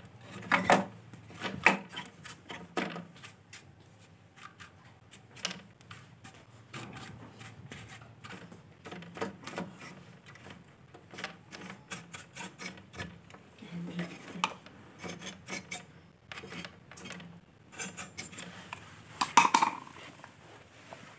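Scattered small clicks, taps and rattles from hands handling the wires and plastic connector of a CRT television's deflection yoke, with a louder cluster of clicks near the end.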